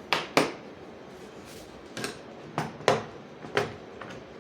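Metal hand tools from a mechanics socket and tool set being handled: a string of about seven sharp clicks and clacks, irregularly spaced.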